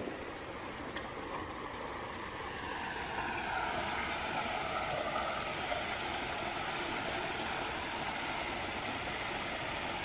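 Drone of an aircraft passing overhead, with sweeping shifts in tone, getting louder about three seconds in, over the steady rush of spillway water.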